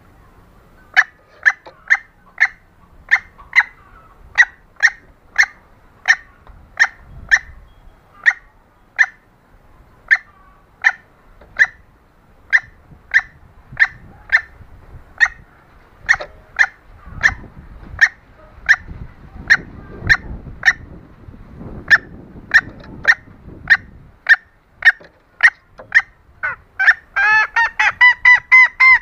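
Junglefowl hen's lure call: a steady series of short clucks, about two a second, breaking into a fast, rapid run of clucks near the end.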